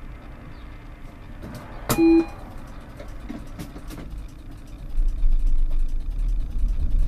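Tram standing at a stop with low background noise; about two seconds in, a short beep with a click. From about five seconds a low rumble rises as the tram starts to pull away.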